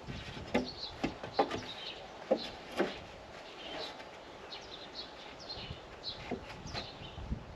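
Small birds chirping faintly throughout, with five short sharp knocks spread over the first three seconds.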